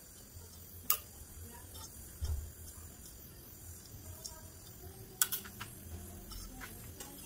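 Faint low rumble of a handheld gas torch flame heating an aluminium joint for brazing, with a few sharp clicks, the loudest about a second in and about five seconds in.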